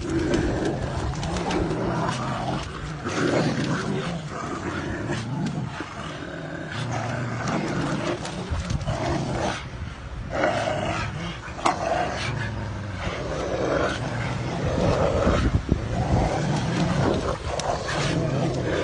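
Rottweilers and a Caucasian shepherd dog growling in repeated low, rough bouts as they wrestle and tug at each other in rough play.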